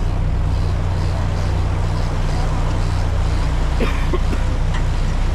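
Fishing boat's engine running with a steady low drone, over a hiss of wind and sea.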